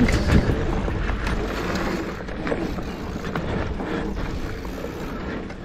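Mountain bike being ridden on a trail: steady rumble of tyres and wind on the microphone, with scattered clicks and rattles, slowly getting quieter.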